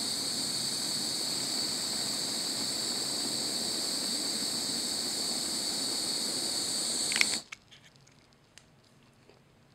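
Kitchen cook torch flame hissing steadily, then cutting off suddenly about seven seconds in, leaving only a few faint ticks.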